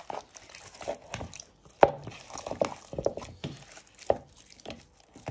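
Hands tossing and rubbing raw chicken breasts in a plastic bowl, coating them in ground black pepper: irregular wet slaps and squelches of meat.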